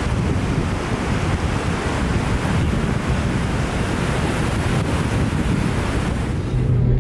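Steady rushing of wind buffeting the microphone, mixed with surf washing on the shore. It cuts off abruptly near the end.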